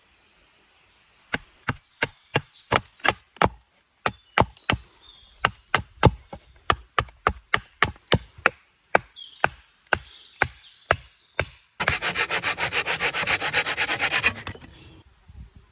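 Wood being worked by hand: a long series of sharp wooden knocks at an uneven two or three a second, then about twelve seconds in a quick run of fast rasping strokes lasting about two seconds.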